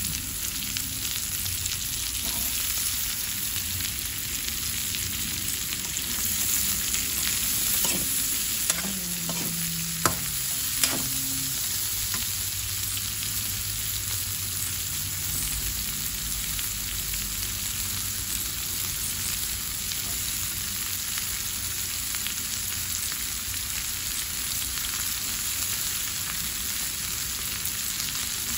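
Sweet potato strips stir-frying in oil in a wok: a steady sizzle while a metal spatula stirs and scrapes them, with a few sharp knocks of the spatula against the wok near the middle.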